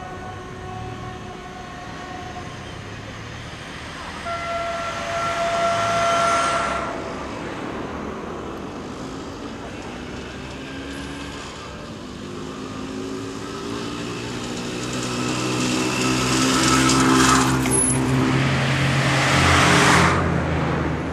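Alsthom diesel railcar running in the distance as it pulls out, mixed with road vehicles passing close by. The noise swells twice, briefly about 4 to 7 seconds in and more loudly from about 14 seconds to near the end, where it drops off suddenly.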